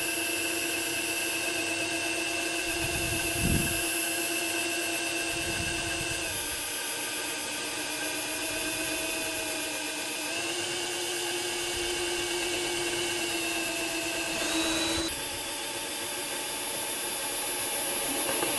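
Topshak TS-ED5 20V brushless cordless drill running steadily as its metal bit drills through aluminium, its motor whine stepping down and back up in pitch a few times as the bit loads. It keeps going without once stalling.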